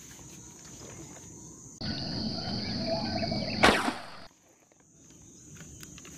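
Insects trilling steadily. About three and a half seconds in, a homemade airgun spear gun fires with a single sharp crack, and the sound then drops abruptly to near quiet for a moment.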